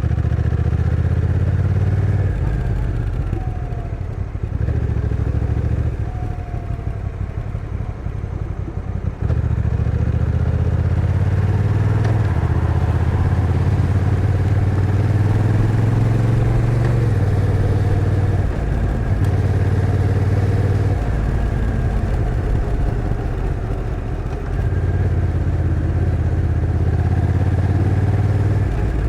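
Honda NT1100's stock 1,084 cc parallel-twin engine running under way, its note rising and falling with the throttle. The pitch steps several times as the dual-clutch transmission changes gear on its own, with a sudden pull harder about nine seconds in.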